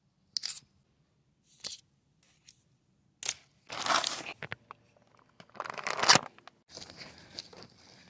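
A plastic bag full of small PVC pipe fittings being handled, the bag crinkling and the fittings rattling inside it, in scattered short bursts with two louder stretches about four and six seconds in.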